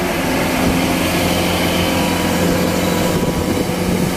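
Kubota DC-105X crawler combine harvester's diesel engine running steadily under heavy load as the machine tries to climb a steep bank, its tracks bogged in deep mud.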